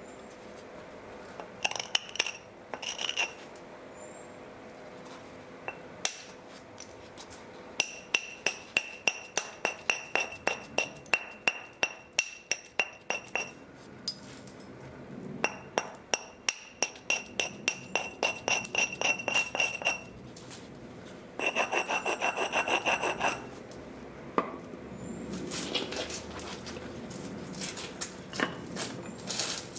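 Tabular Helgoland flint being worked with knapping tools: runs of quick, light strokes on the stone, about three or four a second, each with a brief high ring. The strokes come in bursts of a few seconds with short pauses between, and one burst a little past the middle is faster and denser.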